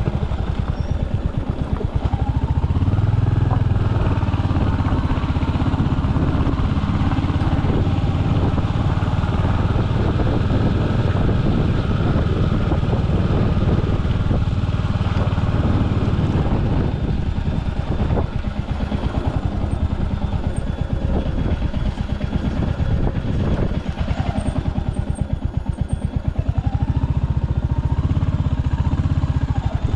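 Royal Enfield Hunter 350's single-cylinder engine running while riding, a steady rapid pulsing beat that eases off about two-thirds of the way through and picks up again near the end.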